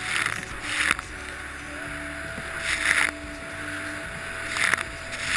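Jet ski running on open water: a steady low engine rumble under repeated rushing surges of water and spray, about five in all, a second or two apart.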